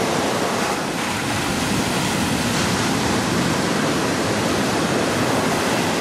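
Steady, even rush of surf on a beach, with some wind buffeting the microphone.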